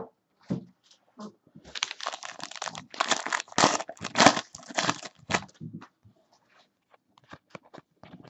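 Foil wrapper of a basketball card pack being slit and torn open with crinkling, a dense stretch of about three and a half seconds. After that the cards are pulled out and handled, with light scattered clicks.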